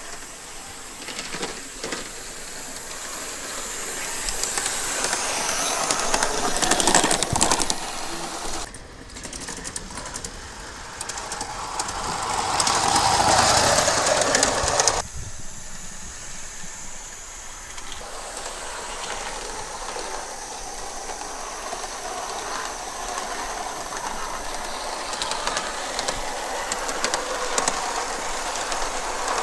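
Gauge 1 live steam model of a GWR 14xx tank locomotive running on garden track, with steam hissing as it goes. It grows louder as it draws near, twice, and each time the sound drops off abruptly, then settles to a steady running sound.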